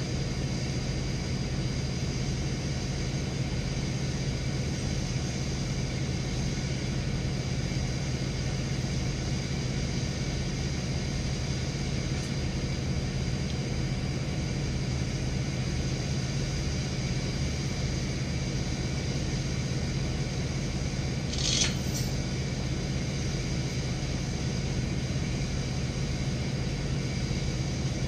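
1996 bucket truck's engine running steadily, with one short sharp squeak or clank about three-quarters of the way through.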